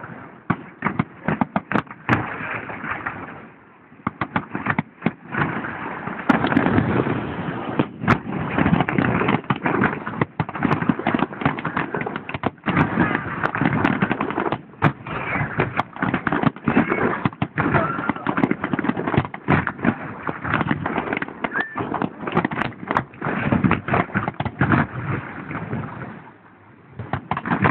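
Fireworks display: aerial shells bursting in rapid succession, many sharp bangs and crackles over a dense continuous din, briefly thinning a few seconds in and again near the end. Heard through a mobile phone's microphone, which cuts off the highs.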